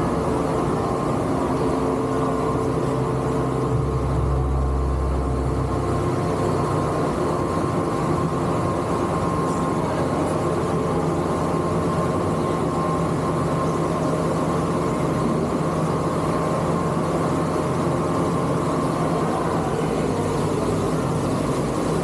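Steady machinery drone of an Intamin rapid river ride's station, a constant hum with several held tones; a deeper hum swells for a couple of seconds about four seconds in.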